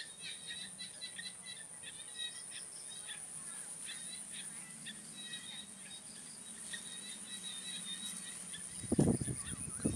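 Insects trilling steadily, a thin high buzz with a fast pulse, over repeated short chirping calls. Two low thumps near the end, about a second apart.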